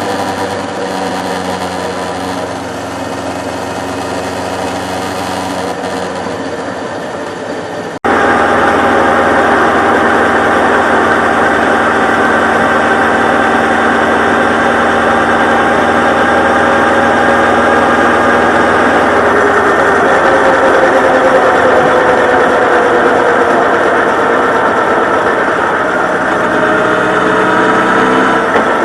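Honda CB1300 Super Bol d'Or's inline-four engine running steadily. About eight seconds in it cuts to a louder recording of the engine, whose pitch sags slightly later on.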